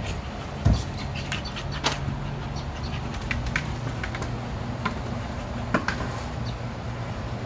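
A dog playing with a hard plastic ball on artificial turf: scattered light clicks, taps and jingles as she noses and chases it, with one dull thump under a second in. A steady low hum runs underneath.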